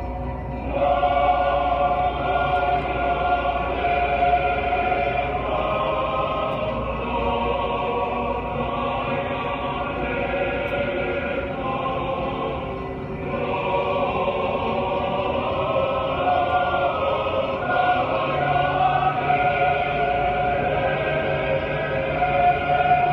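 Choral music from a sound-and-light show soundtrack: a choir sings long held chords that shift every few seconds. A low rumble sits underneath for the first few seconds.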